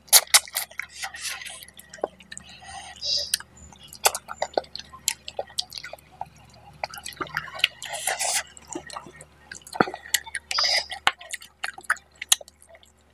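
Close-miked wet eating sounds of rice and fish-head curry eaten by hand: irregular sharp wet clicks of chewing and lip-smacking. There are a few brief hissy bursts about 3, 8 and 11 seconds in.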